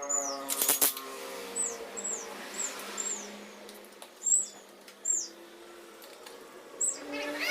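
A bird gives short, high chirps over and over, each sliding downward in pitch. A sharp clatter of clicks comes less than a second in, over a low steady hum.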